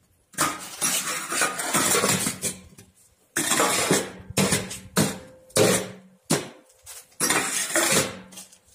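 Cinder block machine's vibrator switched on in a series of short runs, the steel mould and the concrete mix in it rattling loudly with a low hum, stopping and starting about ten times.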